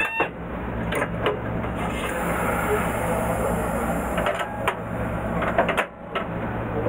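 Cab of a stationary 2100-series electric train: a steady low hum of its onboard equipment, with sharp clicks as the brake valve and controller handles are worked. A hiss of compressed air from the air brake runs for about two seconds in the middle.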